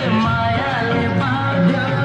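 Recorded pop music with a singing voice, played loud for a dance performance.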